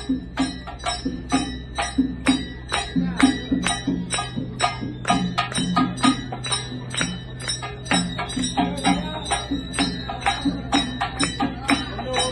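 Rhythmic procession percussion: sharp, ringing metallic strikes, cymbal- or bell-like, about three to four a second, over lower drum beats in a quick, steady beat.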